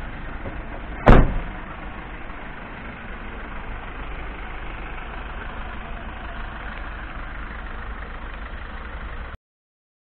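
A Mercedes Sprinter 514 CDI's cab door slamming shut about a second in, then the van's 2.1-litre four-cylinder diesel running steadily at idle.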